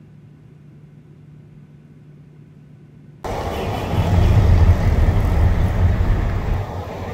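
Steady low drone of an airliner cabin, then after about three seconds a sudden cut to a much louder, rough, fluctuating low rumble of wind buffeting the microphone outdoors.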